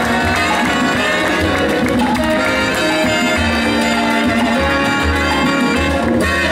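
Instrumental music with held melodic lines over a pulsing, repeating bass line.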